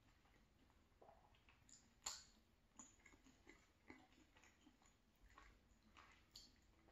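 Faint close-up chewing of rigatoni, with small scattered mouth clicks, and a fork touching the plate as another piece is speared. The sharpest click comes about two seconds in.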